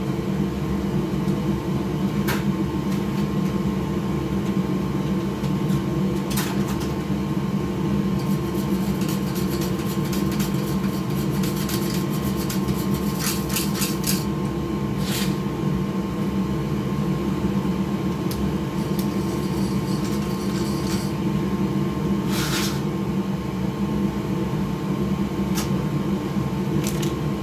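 Steady droning machine hum, with scattered sharp clicks and taps of small parts and tools being handled while a PS5's cooling fan is removed.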